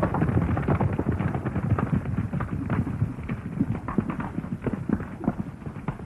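Hoofbeats of a galloping horse, rapid and growing fainter as it rides away.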